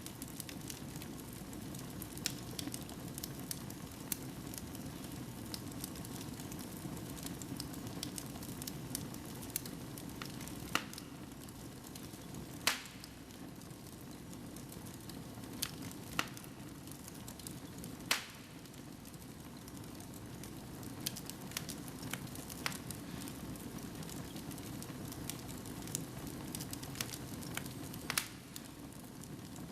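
Wood fire burning in a fireplace: a steady low hiss and rustle of flames with frequent small crackles and a few sharper pops, two of them louder than the rest near the middle.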